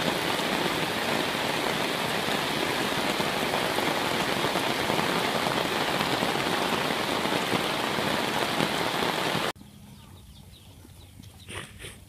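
Heavy rain falling steadily, a dense even hiss, which cuts off abruptly about three-quarters of the way through, leaving a much quieter outdoor background.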